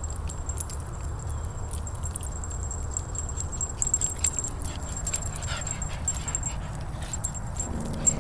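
A dog whining: a short falling whine about halfway through and a low whine near the end. Under it, a steady low rumble and scattered clicks and jingles, typical of dog tags and a handheld camera on the move.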